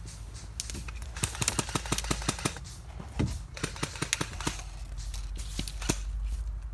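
Airsoft guns firing: a rapid burst of sharp shots, about eight a second, beginning about a second in, followed by scattered short bursts and single shots.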